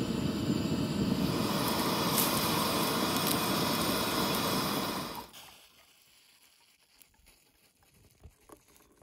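Steady rushing noise of a gas camp stove burner heating an aluminium stovetop moka pot as it brews and steams. The noise cuts off suddenly about five seconds in. Faint small sounds follow as coffee is poured into a steel mug.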